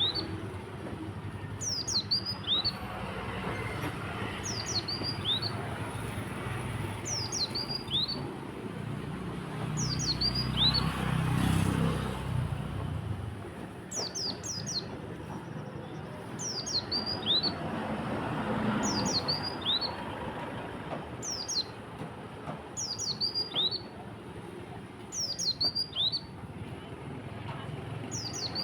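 A pleci (white-eye) in full song, repeating a short phrase of quick downward-sweeping high notes about every two seconds. This is the 'konin' (olive-backed sunbird) phrase that songbird keepers prize as a 'tembakan'. A low rumble swells and fades around the middle.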